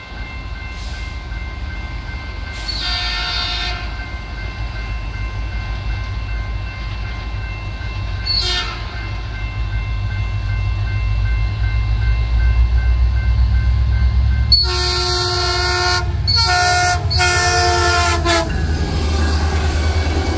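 Metrolink diesel locomotive sounding its horn for a grade crossing as it approaches: a long blast, a short one, then three louder blasts close together near the end. Under it a low diesel rumble builds as the train nears, and by the end the bilevel coaches are rolling past, over a steady ringing from the crossing warning bell.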